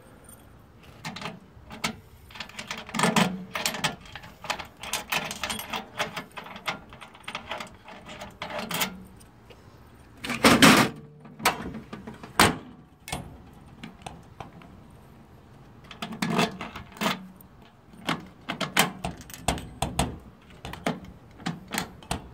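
Keys jangling and metal clicks and rattles as a newly riveted truck toolbox latch handle is worked, with one louder clunk about ten seconds in.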